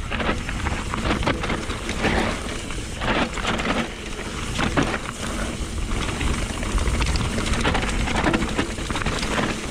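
Mountain bike tyres rolling and crunching over a dry, stony dirt trail, with a dense patter of small clicks and knocks as the bike rattles over stones and bumps.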